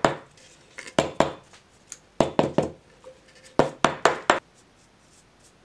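Sharp knocks in quick groups of two or three as a silver-leafed painting panel is struck to shake off the sulfur powder that has been tarnishing the leaf. The knocking stops a little over four seconds in.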